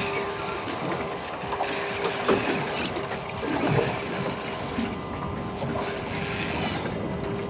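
Fishing reel being wound as a jig is worked near the bottom, its gears ticking, over a steady hum.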